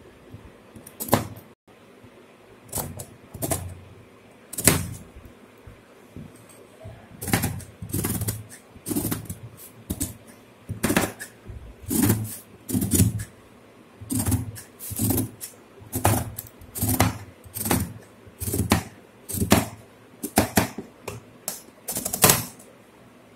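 Large tailor's shears snipping through suit fabric on a cutting table: a few scattered snips at first, then a steady run of crisp snips about one a second from about a third of the way in.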